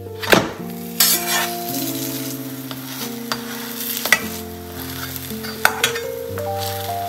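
A potato-stuffed flatbread sizzling in a stainless-steel frying pan, with a metal spatula scraping and clicking against the pan several times. Soft background music runs underneath.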